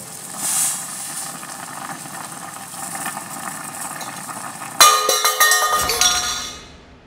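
Pan on a gas stove sizzling as crumbled noodles go in. About five seconds in comes a sudden loud clatter and ringing of metal, a steel bowl and pan knocking together, which dies away within about a second.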